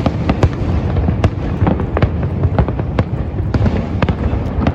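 Fireworks display: a rapid, continuous barrage of bangs and crackles, several a second, over a steady low rumble.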